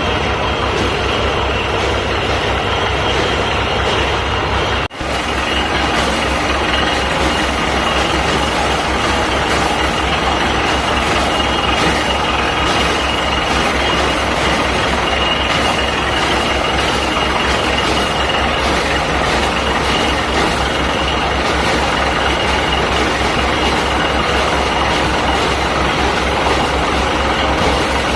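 Truck-mounted borewell drilling rig running steadily: a heavy engine noise with a thin, steady high whine through it. The sound drops out for a moment about five seconds in.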